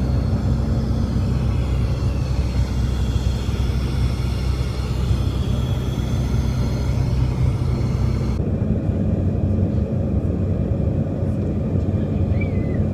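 Steady cabin drone of a Bombardier CRJ1000 in flight: low engine hum from its rear-mounted turbofans under a wash of airflow noise. About eight seconds in, the higher hiss drops away abruptly while the low drone carries on.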